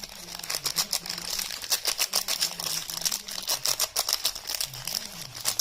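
Rapid, crisp crackling and crinkling as soap bars and their paper and plastic wrapping are handled and unwrapped.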